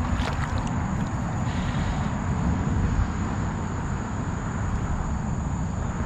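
Steady low rumble of wind on the microphone over creek water noise, with a few faint splashes from a hooked smallmouth bass thrashing at the surface.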